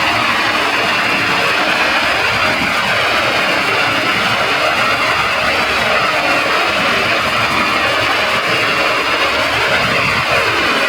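Heavily processed, effect-laden audio from a video editor's effect chain: a loud, unbroken wall of clashing sound with sweeping, warbling pitch patterns and no clear beat or melody.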